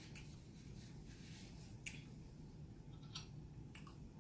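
Faint close-up eating sounds: a handful of soft clicks and smacks while chewing, the loudest about two seconds in, over a low steady hum.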